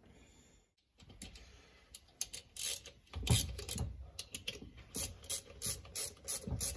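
Light clicks and taps of metal parts and wiring being handled and fitted on an air dryer's cast end cover. They are sparse at first and come faster and more regularly, about three a second, in the last couple of seconds.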